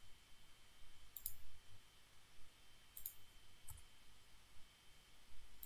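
A few faint, scattered computer mouse clicks as points are placed in a 3D modelling program, over a faint steady high-pitched tone.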